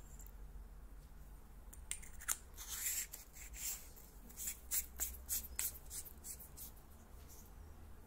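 Convoy M4U aluminium flashlight being twisted in the hands, its parts screwing together: a string of quick scratchy clicks and rubs from the metal threads. It starts about two seconds in and stops about a second and a half before the end.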